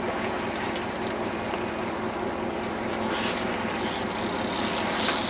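A fishing boat's engine running steadily, with a low hum under a wash of sea and wind noise.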